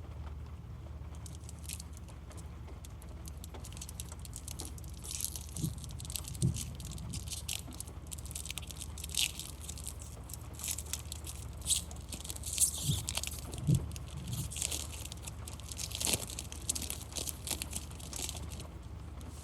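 Foil Pokémon booster pack wrapper crinkling and tearing open, with the cards rustling in the hands. The crackly rustling starts about a second in and goes on in irregular bursts, with a few soft thumps, over a low steady hum.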